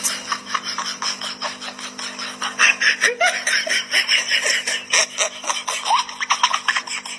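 Typewriter keys being struck in quick irregular runs of sharp clacks, with children laughing and chuckling over the typing.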